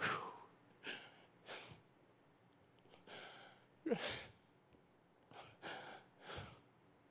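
A man's breaths and short sighs close to a handheld microphone: several brief puffs spread across a few seconds, one with a falling voiced sigh about four seconds in.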